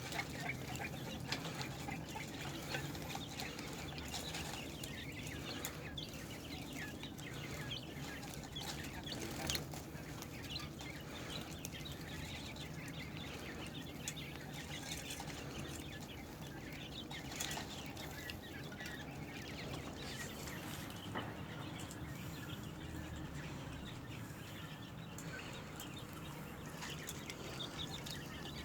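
Quail feeding on basil: a busy, constant scatter of short pecks, rustles and small high calls, over a steady low hum.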